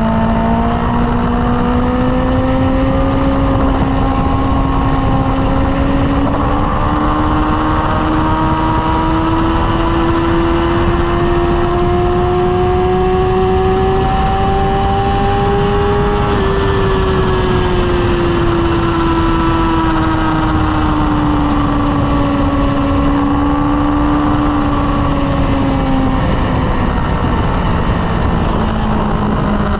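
Sport motorcycle engine running at highway cruising speed, its note climbing gradually for about sixteen seconds and then easing back down, under heavy wind rumble on the microphone.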